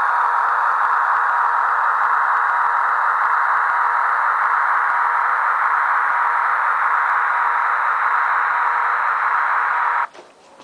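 Model railway freight train behind a model class 151 electric locomotive running along the track: the motor and the wheels on the rails make a steady whirring with a faint thin whine. It cuts off abruptly near the end, followed by a light click.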